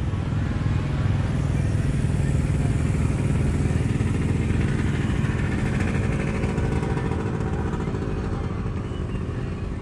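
Motorcycle engine running at a steady speed, a fast even beat with no revving.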